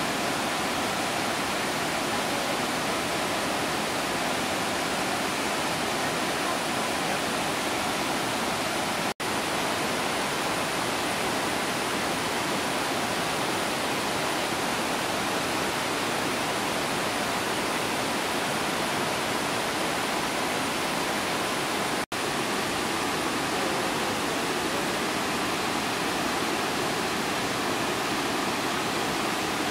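Vazhachal Falls in monsoon spate: a steady rush of muddy whitewater pouring over and around rocks. The sound cuts out for an instant twice, about nine and twenty-two seconds in.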